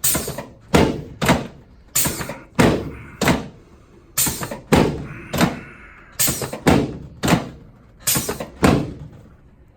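Chiropractic adjustment of the sacroiliac joints: a quick run of about a dozen sharp thumps from thrusts on the pelvis of a patient lying face down, often coming in close pairs, stopping shortly before the end.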